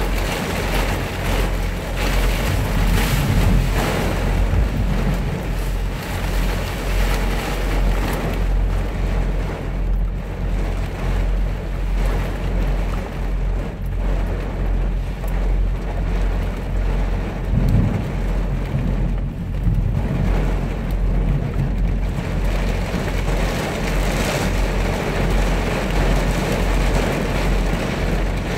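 Heavy rain drumming on a semi-truck's cab and windshield, heard from inside the cab over a steady low drone. A low rumble swells twice, a few seconds in and again past halfway.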